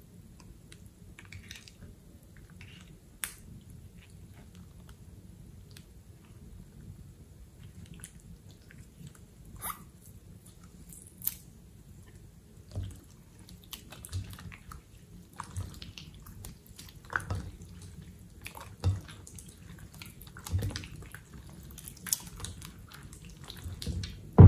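Thick wet slime being stirred, poked and then squeezed and kneaded by hand: scattered sticky squelches and small clicks, sparse and soft at first and getting louder and more frequent in the second half.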